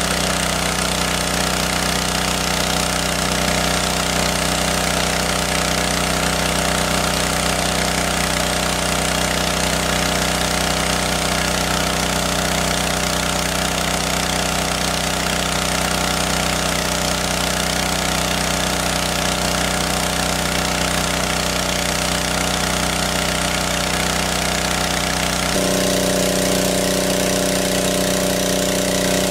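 Engine-driven water pump running steadily while it draws water out of a lake. The pitch pattern of its running changes abruptly near the end, then holds steady again.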